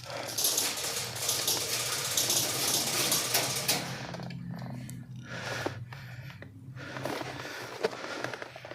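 Airsoft electric gun, an AK-105 replica, firing a long full-auto burst for about four seconds, its gearbox cycling in a rapid mechanical rattle over the motor's hum, followed by a few scattered clicks and shorter noises.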